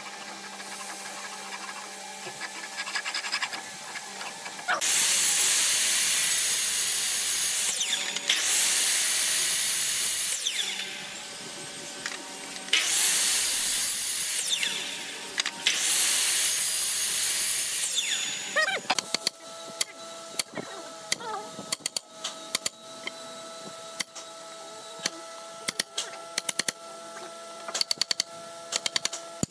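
Electric miter saw run four times, each run a few seconds of motor whine and blade noise as it cuts hardwood trim. This is followed by a quick run of sharp clicks and taps from a chisel cutting a notch in the wood.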